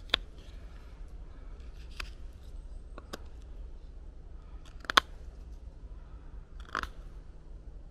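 Knife cutting a notch into a wooden stick: a handful of sharp, separate clicks as the blade bites into the wood, the loudest about five seconds in.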